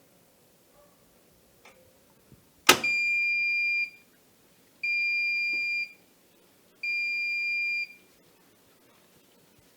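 Washing machine signalling the end of its cycle: a sharp click, then three long electronic beeps about two seconds apart, each lasting about a second. A few faint clicks come before them.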